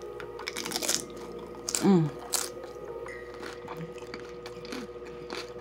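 Biting into and chewing a crunchy hard taco shell dipped in sauce. A cluster of sharp crunches comes in the first second, another loud crunch about two and a half seconds in, then quieter chewing.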